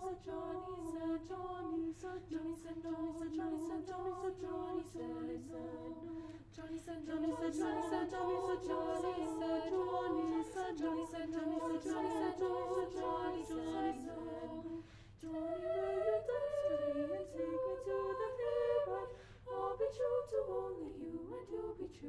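Treble choir of seven girls singing a cappella in harmony, with a steady low held note under moving upper parts. The sound grows fuller about seven seconds in, and the lower part starts moving around fifteen seconds.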